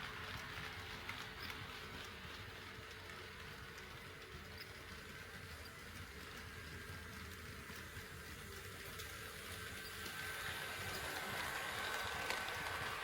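HO scale model train running on the track, with fine clicks of the wheels over the rail joints. It dips in level midway, then grows louder over the last few seconds as a steady motor whine comes in.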